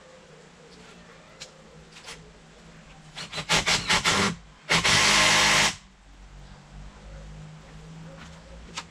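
Cordless drill driving a screw into a timber roof rafter: a stuttering run of short bursts about three seconds in, then a steady full-speed run of about a second.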